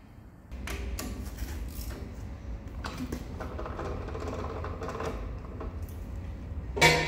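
Light clicks and knocks of tools and metal parts being handled, over a low steady hum. A louder knock with a brief metallic ring comes near the end.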